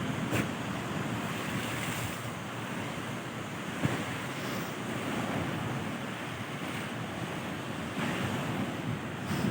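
Sea waves washing onto the beach in a steady, gently swelling rush, with wind buffeting the microphone and a couple of brief knocks.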